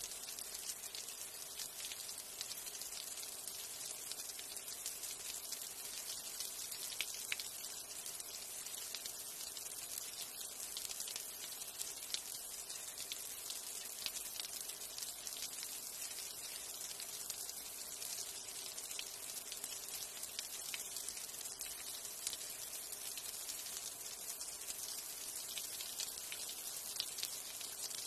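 Light rain falling: a steady hiss dotted with many small drop ticks.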